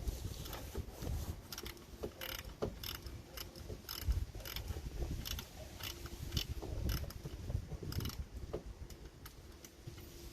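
Irregular metallic clicks and knocks of hand tools being worked, over a low rumble.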